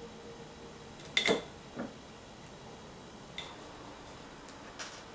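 A few light knocks and clinks of a glass jar being handled, the loudest with a brief glassy ring a little after a second in.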